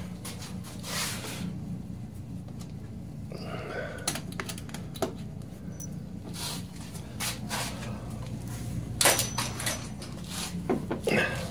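Scattered light clicks and knocks of tools and parts being handled on a snowmobile tunnel, the sharpest a pair about nine seconds in, over a steady low hum.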